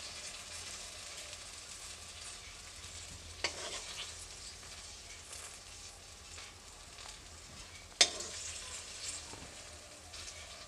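Hot tempered sugar syrup being spooned over cut dhokla: a steady faint sizzle and hiss, with a steel ladle clinking against the metal pans twice, the second clink, about eight seconds in, the loudest.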